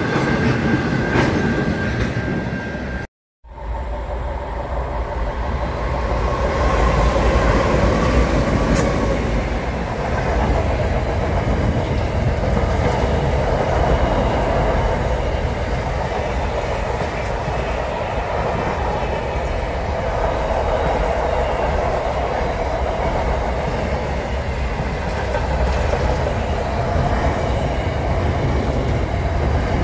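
A train's cars passing close by, wheels running steadily on the rails. It follows a brief cut to silence about three seconds in.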